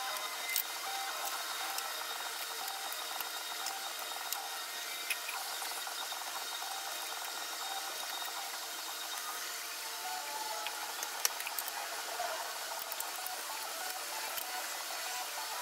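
Hand tools working a coolant hose loose: scattered light clicks and clinks of locking pliers and a screwdriver on metal and plastic, over a steady hiss.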